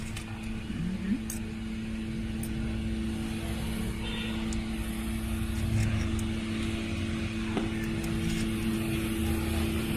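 Steady mechanical hum, two constant tones over a low rumble that swells slightly a couple of times.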